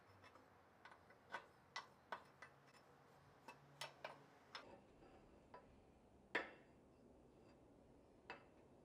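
Flat metal scraper working caked sawdust off the painted metal base of a 1938 Craftsman 24-inch scroll saw: faint, irregular ticks and scrapes as the blade catches on the metal and bolt heads, with one louder clack about six seconds in.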